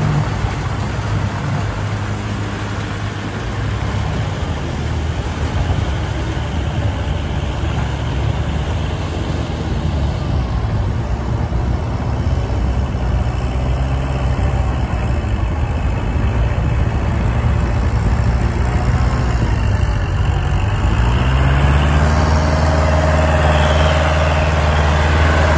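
Kubota tractor's diesel engine running steadily under load while working a rotary tiller. About 21 seconds in, the engine note rises and then holds higher and a little louder.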